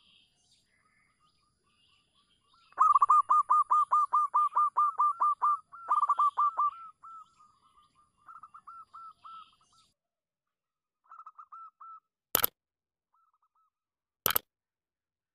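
Zebra dove (perkutut) cooing: a fast run of short, arched coo notes, about four a second, for some four seconds, then two shorter, fainter runs. Two sharp clicks near the end.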